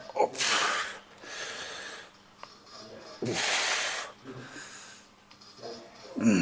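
A man breathing out hard through his mouth twice, about three seconds apart, as he pushes through repetitions on a seated chest press machine.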